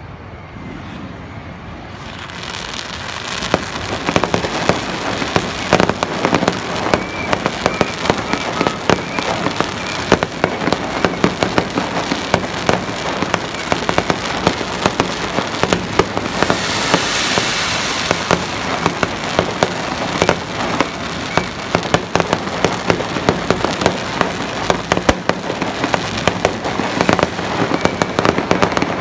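Fireworks display: dense, rapid crackling and popping of bursting fireworks that builds up over the first few seconds into a continuous barrage, with a louder rushing hiss about seventeen seconds in.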